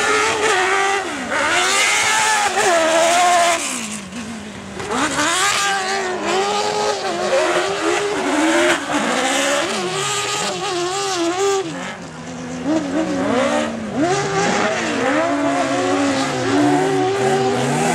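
Autocross race cars on a dirt track, their engines revving hard and falling back over and over as the drivers accelerate, lift and shift through the corners. The engine sound fades a little twice as cars move away.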